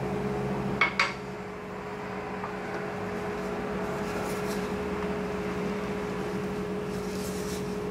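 Two sharp taps about a second in, as a small glass cup is knocked against a mixing bowl to empty out cornstarch. Then a silicone spatula scrapes softly a few times, stirring the dry mix in the bowl, over a steady low hum.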